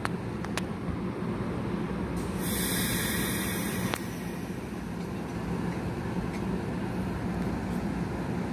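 Steady low hum of a stopped commuter train of NJ Transit multilevel coaches. A sharp burst of air hissing from the train starts and stops abruptly, lasting about a second and a half, a couple of seconds in.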